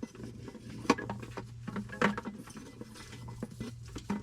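Scattered knocks, clicks and rustling of hands working a diesel heater's fuel line through the floor, with two sharper knocks about one and two seconds in, over a steady low hum.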